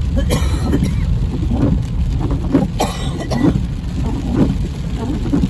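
Steady road and engine rumble heard from inside a car driving through rain on a wet road, with two brief sharp noises, about a third of a second in and near three seconds in.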